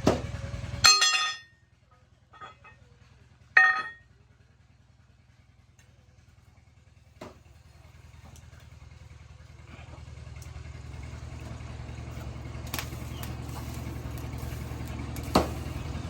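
A low motor hum cuts off about a second in, and two sharp clangs of metal ring out soon after. From about halfway a low motor hum builds up again, with another clank near the end.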